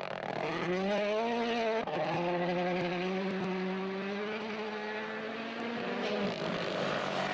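Rally car engine pulling at high revs: its pitch climbs over the first two seconds, holds steady, then drops away about six seconds in.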